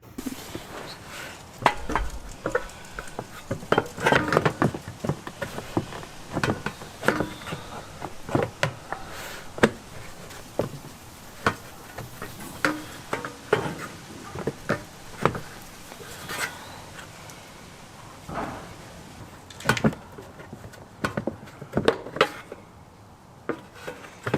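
Irregular knocks, taps and clatter of a car's metal under-bumper trim piece being handled and test-fitted around a tow hitch, with a few sharper hits mixed in.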